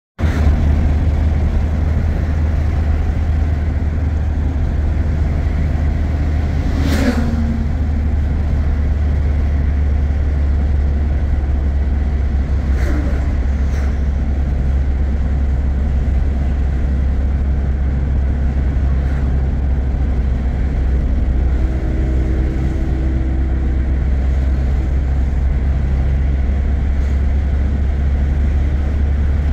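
Car driving on a road: a steady low engine and road rumble, with a brief passing sound about seven seconds in.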